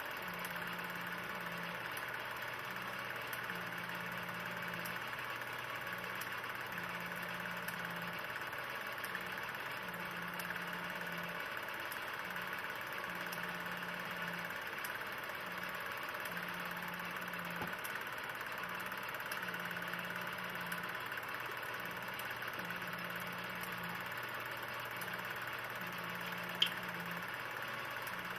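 16 mm film projector running: a steady mechanical whir and hiss, with a low hum that cuts in and out about once a second. One sharp click comes about two seconds before the end.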